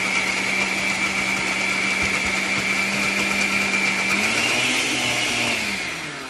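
Oster countertop blender with a glass jar running steadily, puréeing chickpeas into hummus, with a motor hum and a high whine. About four seconds in its pitch rises a little, then the motor winds down and fades near the end as it is switched off.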